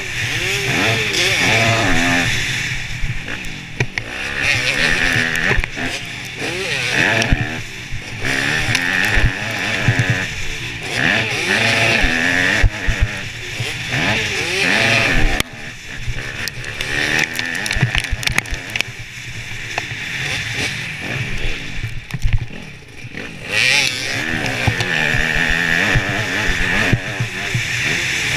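Motocross dirt bike engine revving hard, its pitch climbing and dropping again and again as the rider opens and closes the throttle through the gears, under heavy wind noise, with occasional sharp knocks as the bike hits the rough track.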